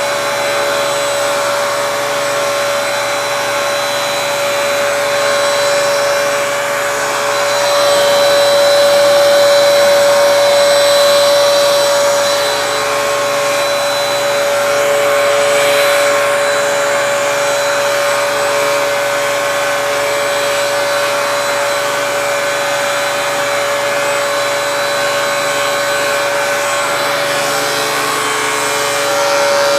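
Vacuum cleaner running steadily with a steady whine, pulling air and hair through a Flowbee haircutting attachment whose electric clipper is also running. The sound swells louder for a few seconds about a third of the way in.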